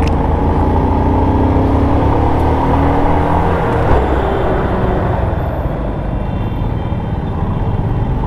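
Royal Enfield Himalayan single-cylinder motorcycle engine running on the move, with a heavy low rumble; the engine note eases down a little over the first few seconds.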